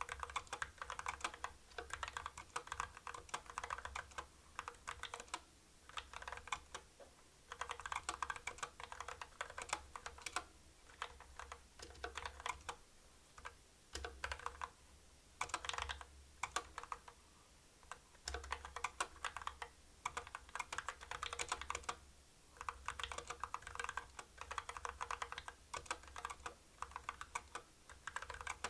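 Typing on a CU65 65% mechanical keyboard with stock Kailh Box Black linear switches: rapid keystroke clacks in bursts of a second or two, with short pauses between words.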